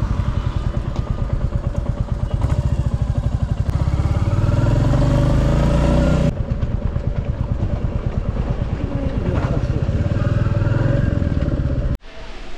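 Royal Enfield Classic 350's single-cylinder engine running while riding, with a rapid, even exhaust beat that rises in pitch as the bike picks up speed over the first few seconds. The engine sound stops abruptly near the end.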